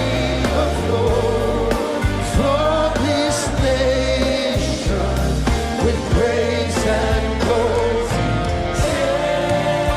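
Live worship music: a band with a steady bass line and voices singing over it.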